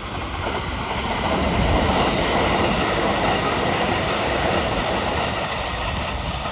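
Kintetsu 'Hinotori' six-car limited-express electric train passing at speed, its wheels running on the rails. The noise swells to its loudest about two seconds in and holds, easing off slightly near the end as the train moves away.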